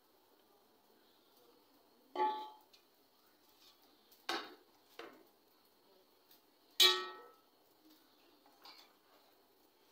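A metal spoon clinking against a metal cooking pot and plate while scooping out rice: five separate knocks, the one about seven seconds in the loudest, with a short ring.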